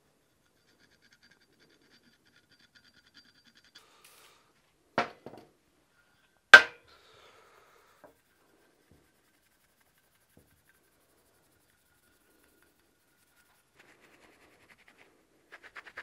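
A metal pick scrapes faintly with a thin squeak on the aluminium steering rack housing. A knock follows, and about six and a half seconds in there is a single sharp metal clink with a short ring, the loudest sound. Faint rag rubbing comes near the end.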